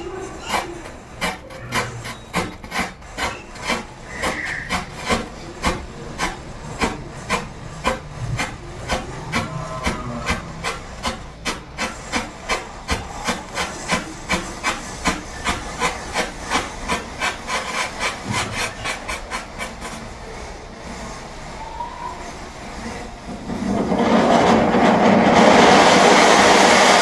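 A chain of matchsticks catching one after another, each flaring with a short scratchy fizz, about two a second. Near the end a loud rushing hiss takes over for about three seconds, then cuts off suddenly.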